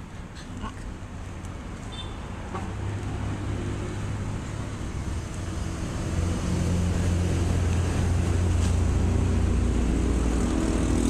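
A low motor engine hum that grows louder over the first half and then holds steady, with faint rustling and crumbling of soil as gloved hands dig through it.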